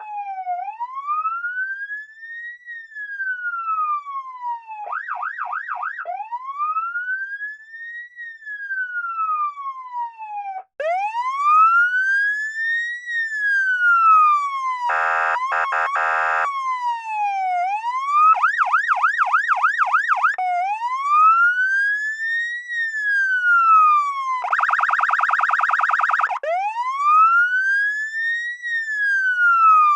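Electronic police siren in a slow wail, each rise and fall taking about five seconds. The wail is broken three times by a short burst of fast yelp and twice by a steady buzzing air-horn blast. There is a brief break about a third of the way through.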